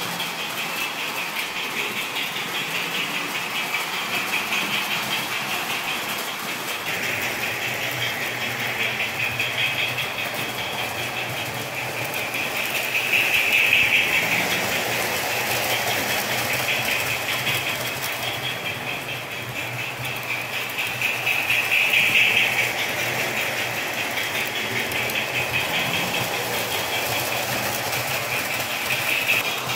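O-scale model trains running on the track: a steady whirring rumble of motors and wheels. It grows louder twice, about halfway through and again about two-thirds of the way in, as a train passes close by.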